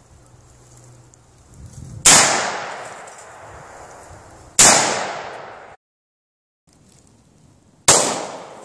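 Three AR-15 rifle shots, about two and a half and three seconds apart, each a sharp crack that trails off over about a second.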